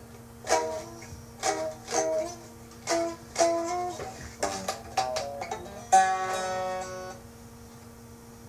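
A plucked string instrument playing single notes and short phrases, a new note every half second or so, then one longer ringing note about six seconds in that fades before a pause. A steady hum runs underneath.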